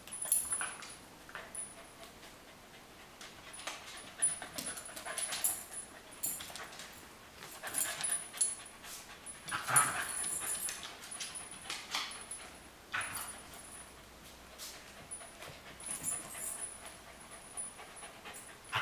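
An adult corgi and a corgi puppy playing rough: panting and small whimpers, with scattered scuffles and clicks from their paws and bodies on the rug and floor, coming in irregular bursts.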